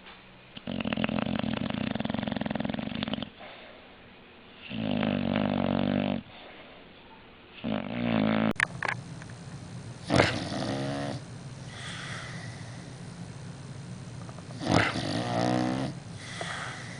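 Sleeping dogs snoring: a snore on each breath about every three seconds, then, after a cut partway through, another dog snoring more slowly, about one snore every four to five seconds.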